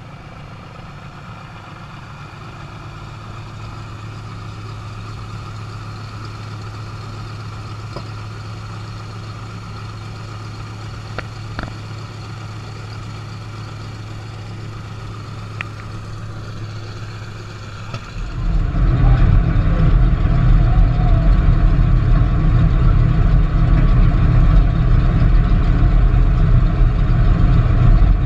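Douglas C-47 Skytrain's twin radial engines running at idle as it taxis, a steady low drone that slowly grows louder. About 18 seconds in it turns abruptly into a much louder, rougher rumble, as heard close to the running engines.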